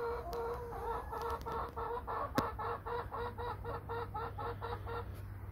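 Hen clucking in a rapid, even run of about four clucks a second, which stops about five seconds in. A single sharp click sounds midway through.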